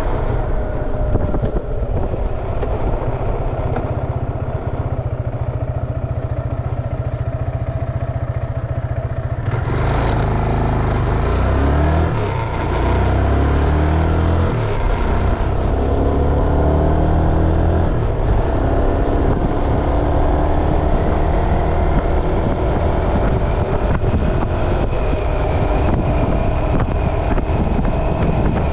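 A road vehicle's engine running under way, with wind and road noise. About ten seconds in the wind noise jumps, the engine note shifts up and down in steps for several seconds, then climbs slowly as the vehicle accelerates.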